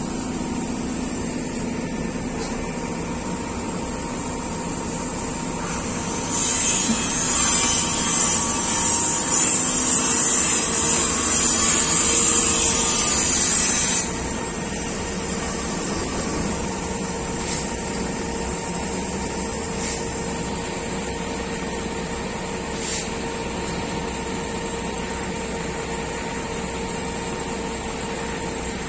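Heavy construction machinery engine running steadily, a constant drone with a few steady tones. About six seconds in, a loud high hiss cuts in abruptly and stops just as abruptly about eight seconds later.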